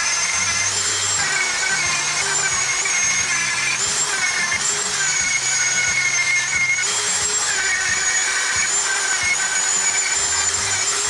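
Dremel rotary tool whining at high speed as it grinds cured epoxy putty on an antler repair, its pitch wavering slightly as it bears on the work. Background music plays underneath.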